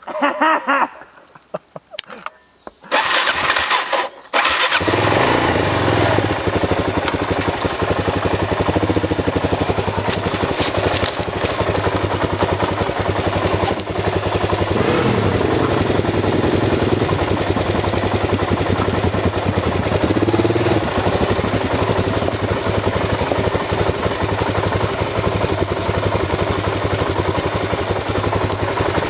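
A dirt bike's engine gives a few short bursts, then from about four seconds in runs steadily under way on single track.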